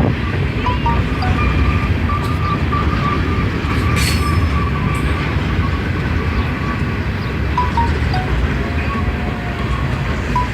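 Freight train cars rolling past in a steady low rumble, with a faint thin squeal for a few seconds near the start and a sharp click about four seconds in.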